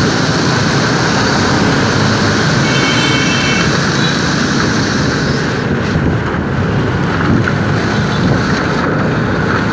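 Wind buffeting the microphone and the steady running of motorbike and truck traffic while riding a motorbike through city traffic. A short high horn beep sounds about three seconds in.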